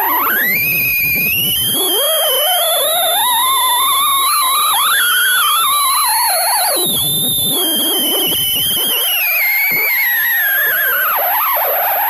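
A loud whistling tone that glides up in pitch over the first two seconds, wavers up and down through the middle, and slides back down near the end, over a steady very high whine.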